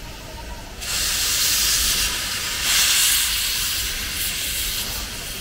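Steam locomotive 8630 (JNR 8620 class) venting steam through its open cylinder drain cocks as it starts to move off. It makes a loud hiss that starts suddenly about a second in, swells near the middle and eases off toward the end.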